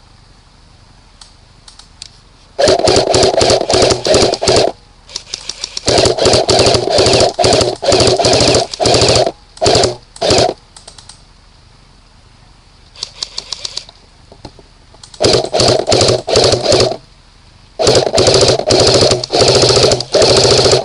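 Airsoft gun firing in rapid full-auto bursts, each a fast stream of shots lasting one to three seconds, about five bursts with short pauses between them.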